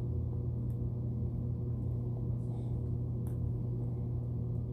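Steady low hum, unchanging and stacked with overtones, with a few faint light clicks from small items being handled.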